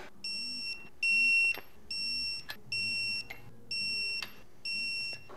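Digital torque wrench beeping six times, about one short high beep a second, signalling that the set torque of 8 ft-lb has been reached on a VW engine case nut.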